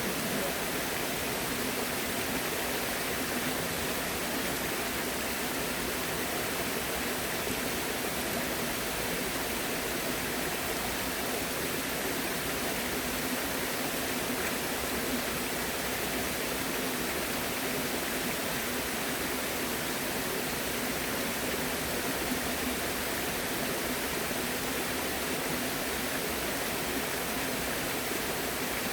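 Flowing water rushing steadily, an even unbroken hiss and rush with no separate splashes or other events.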